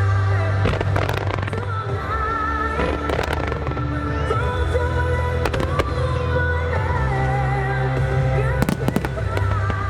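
Aerial fireworks bursting over a loud music soundtrack with a wavering melody and deep bass. Sharp bangs come about a second in, around three seconds, at five and a half seconds and near the end.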